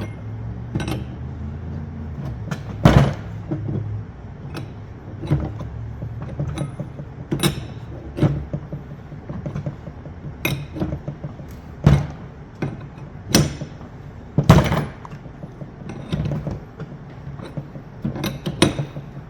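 Wrench on a hydraulic fitting being tightened into a cable cutter's cutting head: irregular metal clicks and knocks, about one a second, as the wrench is turned and repositioned, with a few louder knocks among them.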